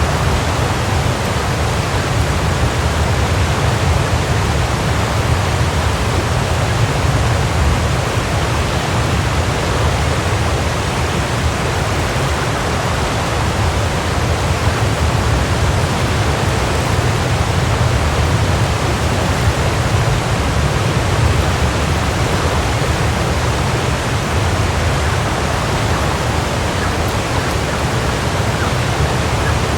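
Waterfall: water falling and splashing in a steady, unbroken rush, full and deep.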